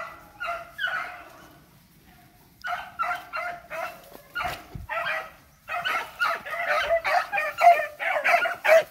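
Beagles baying on a rabbit's trail: repeated short yelping calls. The calls pause briefly about a second and a half in, then come faster, overlapping and louder from about the middle on.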